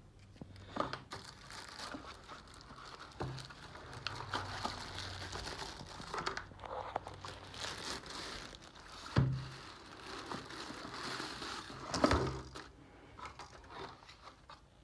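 Plastic packaging crinkling and rustling as a selfie stick tripod is unwrapped, with a few sharp knocks; the loudest come about 9 and 12 seconds in.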